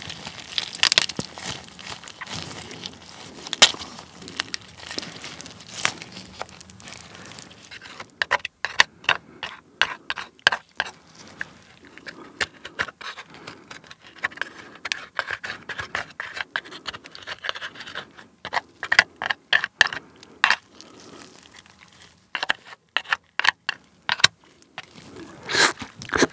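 Wet squelching and crackling as raw soy-marinated crab (ganjang-gejang) is squeezed and broken apart by gloved hands, and its shell is scraped out. The sound comes as irregular clicks and snaps in several busy spells.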